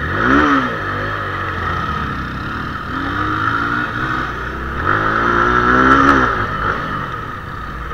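Motorcycle engine revving as the bike pulls away and rides along a dirt trail. The revs climb at the start, climb again twice and ease off about six seconds in.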